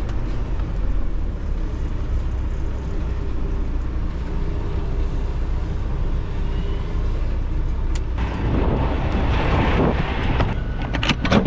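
Semi-truck diesel engine running steadily at low speed while the truck is slowly maneuvered. About eight seconds in, a broad hiss rises over it, and a few sharp clicks come near the end.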